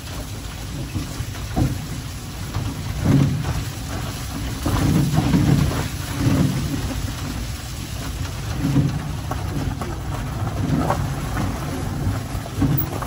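Wheeled dog-sled cart rolling fast over a wet gravel trail behind a husky team: a steady rumble and crunch from the wheels, with irregular jolts and knocks as the cart bumps along.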